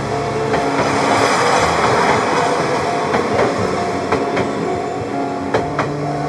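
Enoden electric train running past close by, its wheels clacking over rail joints several times in the second half.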